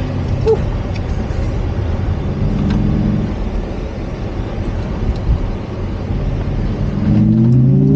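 Inside the cabin of a Xiaomi SU7 Max electric car on a track: steady road and tyre noise, with the electric drive motor's whine rising in pitch near the end as the car accelerates again.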